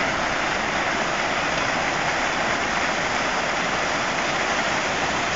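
Ornamental fountain splashing steadily, its rings of arching water jets falling into the pool below.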